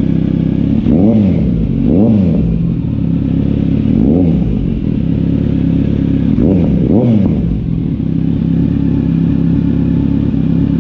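Kawasaki Z900 SE's inline-four engine idling through its previous, temporarily fitted muffler, blipped about five times, each brief rev rising and falling back to idle.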